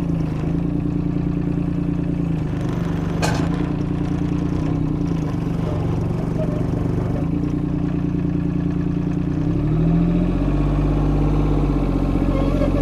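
The Yanmar three-cylinder diesel of a 2004 Kobelco SK13SR mini excavator running steadily, with a single sharp click about three seconds in. About ten seconds in, its note shifts and a deeper low rumble comes in.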